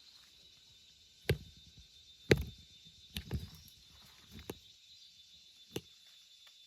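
A handful of sharp, irregularly spaced knocks, about five in all, the second the loudest, over a faint steady high-pitched hum.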